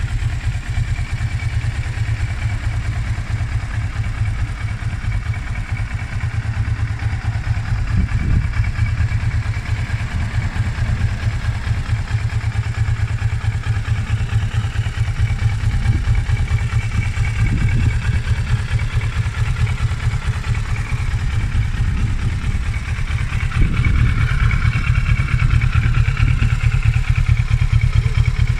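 Kawasaki ER-6f's 649 cc parallel-twin engine idling steadily, a little louder near the end.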